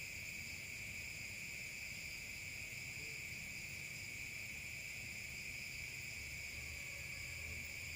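Night insects, likely crickets, chirring in a steady unbroken high drone.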